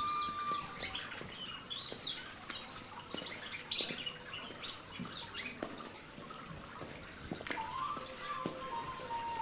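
Small birds chirping in quick short calls, with scattered drips and clicks of water. Near the end a few long held notes come in.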